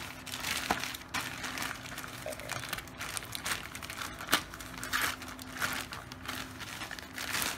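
Plastic courier pouch crinkling and rustling as it is handled and pulled open by hand, in irregular crackles with one sharp crackle about four seconds in.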